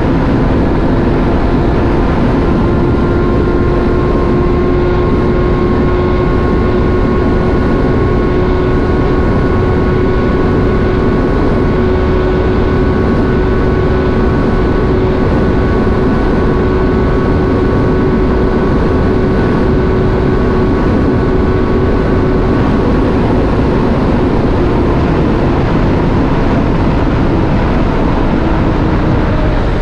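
Motorcycle engine running at a steady cruising speed under heavy wind rush on the microphone, its note easing slightly lower in the last few seconds.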